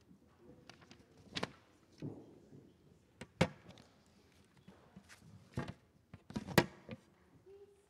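A few scattered sharp knocks and thumps from people moving about and handling things, about four in all, the loudest near the end.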